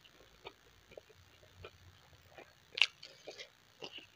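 Close-up chewing of a hand-fed mouthful of rice and mutton curry: soft, wet mouth clicks and smacks, with one sharper, louder smack about two-thirds of the way in.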